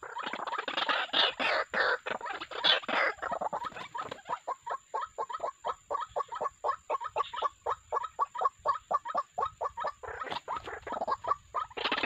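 White-breasted waterhens calling: loud, harsh, croaking notes repeated rapidly. Jumbled at first, then settling into an even run of about five notes a second, and jumbled again near the end.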